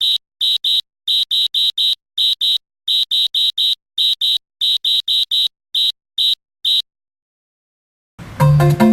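A series of about twenty short, identical high-pitched electronic beeps in uneven groups, stopping about seven seconds in; music starts near the end.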